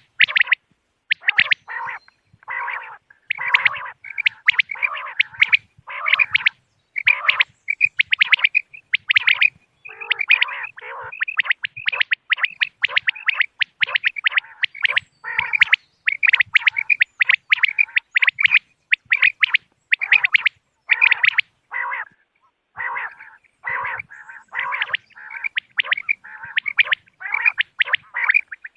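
Common quail calling over and over in quick runs of short, sharp notes. Some runs are higher-pitched and some lower, with brief pauses between them.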